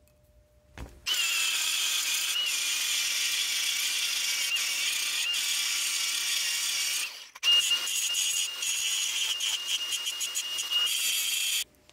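Angle grinder with an abrasive disc grinding a lumpy aluminum weld build-up flat on a cast aluminum bearing retainer. It runs steadily with a high whine, starting about a second in. There is a short break about seven seconds in, then a second run that cuts off near the end.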